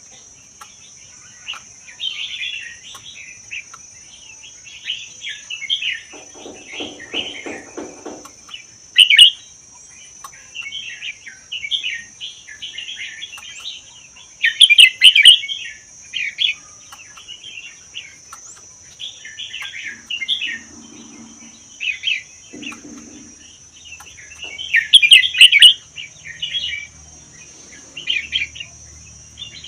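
Red-whiskered bulbul singing, repeating short chattering song phrases with brief pauses between them, over a steady high-pitched drone. The loudest phrases come at about 9, 15 and 25 seconds.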